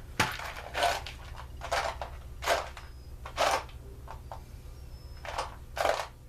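A run of short scraping and clattering noises, about seven in six seconds, from parts and tools being handled on a workbench.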